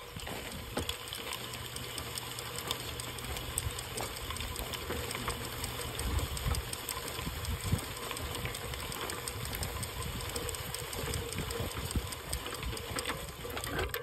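Hand-pushed seeder rolling along a soil bed, its wheels and seed-metering roller giving a steady run of small clicks and rattles.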